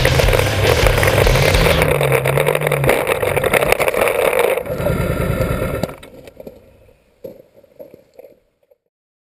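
Suzuki V-Strom DL650's V-twin engine running and briefly revving as the bike tips over onto its side. About six seconds in the engine cuts out, leaving a few faint knocks before silence.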